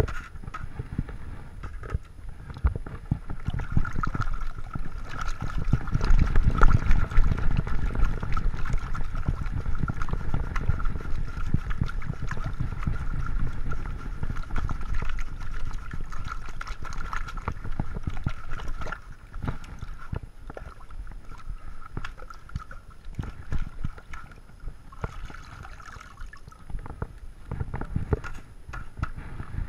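Gravel being washed in round sieve screens swirled and shaken in a water-filled trough: water sloshing and splashing, with stones rattling against the screen mesh. It is loudest in the first half and quieter after about twenty seconds; near the end, wet gravel is tipped from a screen into a plastic bucket.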